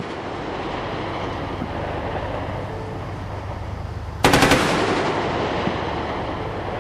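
A rapid burst of automatic gunfire about four seconds in: six or seven shots fired in quick succession within about half a second, over a steady low background noise.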